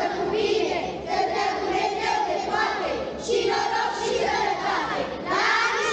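A group of children singing a Romanian Christmas carol (colindă) together, in short held phrases.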